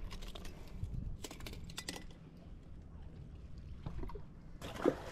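Clicks and rattles of the fish and fishing gear being handled on the rocks. Near the end there is a short, loud splash as the striped bass is tossed back into the canal.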